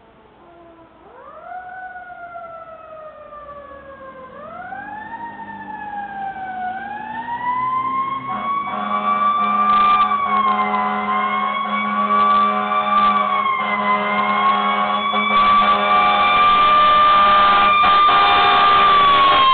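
Fire engine siren wailing in long rising and falling sweeps, growing steadily louder as the engine approaches. From about eight seconds in, a steady lower blaring tone sounds along with it.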